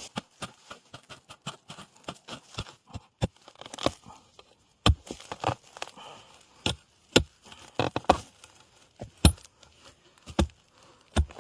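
A digging hoe striking soil and bamboo roots again and again, digging out winter bamboo shoots: a string of irregular knocks and thuds, the heaviest blows spread through the second half.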